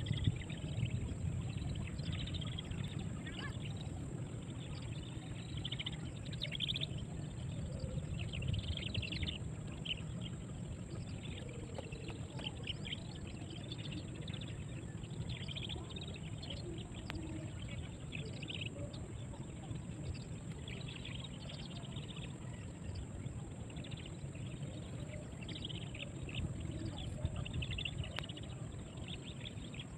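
Outdoor river ambience: a steady low rumble with scattered short high chirps and a constant thin high hiss.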